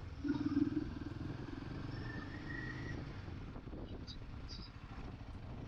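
Motorcycle engine running steadily while riding, a low, even drone.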